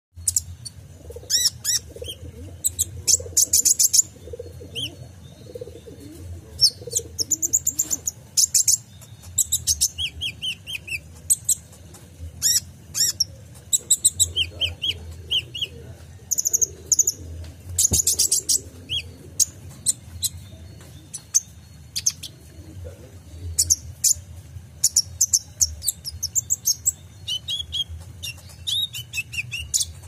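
Male kolibri ninja sunbird singing: bursts of very high, rapid chirps and trills, one after another, with short pauses between phrases.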